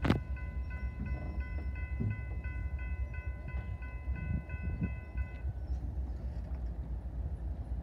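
Railroad grade-crossing bell ringing about three times a second, then stopping about five seconds in as the crossing gates lift, over a low steady rumble.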